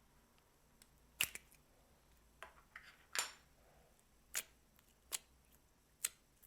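Slime being worked by hand, giving sharp wet pops and clicks about six times, one just after three seconds a little drawn out, with quiet in between.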